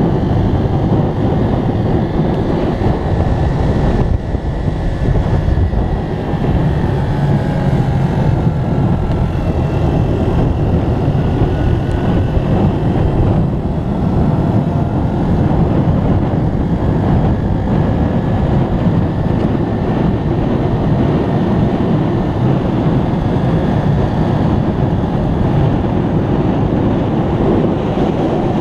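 Motorbike engine running steadily at road speed, with heavy wind noise on the microphone.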